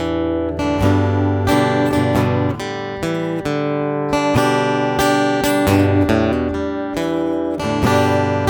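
Epiphone J-45 Studio EC acoustic-electric guitar playing a run of chords. Each chord is struck with a bright attack and left ringing into the next.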